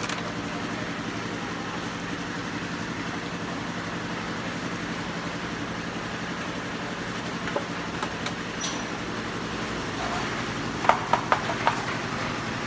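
A steady engine hum runs throughout, with a quick run of sharp knocks near the end.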